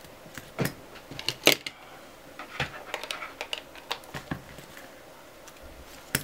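Scattered light clicks and taps from handling small electronic parts: the LED strip's wire connector being plugged into its driver board and the board moved about. The loudest click comes about one and a half seconds in.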